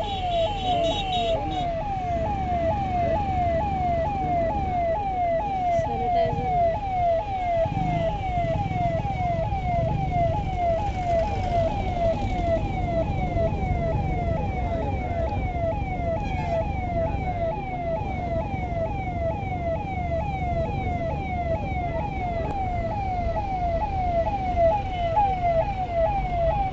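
Airport fire tender siren wailing in quick falling sweeps, about two a second, over a low rumble. It sounds while the fire tenders spray a water-cannon salute over the arriving jet.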